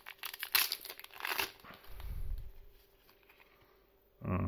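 Foil trading-card booster pack being torn open and crinkled, a run of crackly rustles over the first second and a half, then a short dull rumble of handling before it goes quiet; a brief voice comes in near the end.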